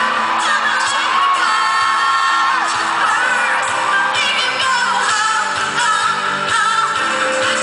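Live pop music: a female singer sings a melody over a loud backing track with drum hits.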